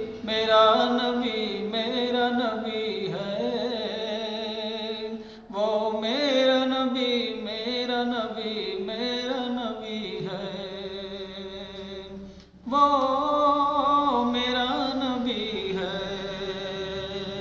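A voice singing a naat, drawn out in long ornamented phrases that bend and glide in pitch, with two short breaks, about five and a half and twelve and a half seconds in.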